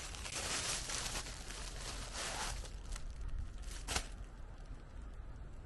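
Rustling and crinkling for about the first two and a half seconds, then a single sharp click about four seconds in.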